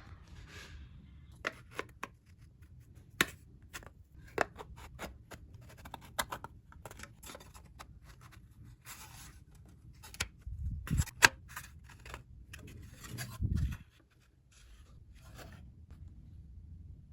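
Unboxing handling noises: scattered sharp clicks, short scrapes and rustles of packaging being handled, with two heavier low thumps, one about ten seconds in and one near the end.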